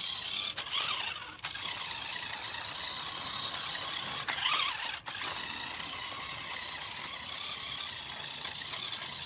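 Toy RC monster truck's small electric motor and drivetrain running as its wheels churn in mud. The two-wheel-drive truck is stuck and cannot climb out.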